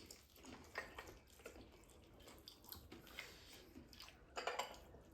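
Faint eating sounds: a few soft wet clicks and smacks of chewing and food being handled at the plate, with a slightly louder patch about four and a half seconds in.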